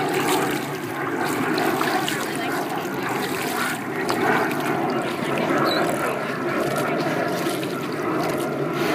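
Water splashing and lapping as bottlenose dolphins move at the surface of the pool, over a steady background of people's voices.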